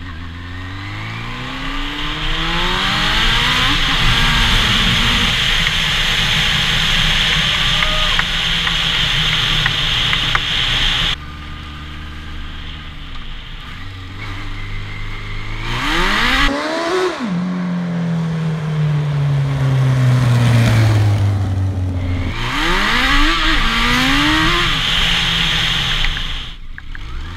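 Yamaha FZR1000 sport bike's inline-four engine heard from the bike while riding: it revs up through the gears at the start, then runs at speed under a steady rush. After an abrupt change about eleven seconds in, it rises several more times and falls away in one long slowing-down note.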